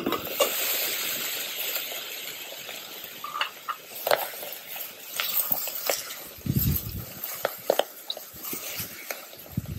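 Mixed vegetables sizzling in oil in a lightweight camping pot over a gas canister stove. A wooden spatula stirs and scrapes against the pot, giving scattered clicks and knocks.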